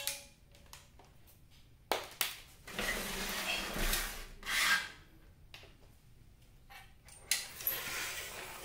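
Hands handling a CRT television's loose main circuit board: a few clicks, then rubbing and scraping as the board and its wires are shifted across a tile floor, with more scraping and clicks near the end.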